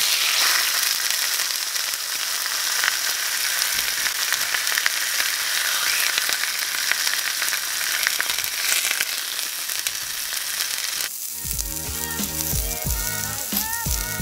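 A butterflied mullet sizzles steadily skin-down in a stainless steel skillet that is far too hot, so the skin is charring. About eleven seconds in, background music with a beat starts under the sizzle.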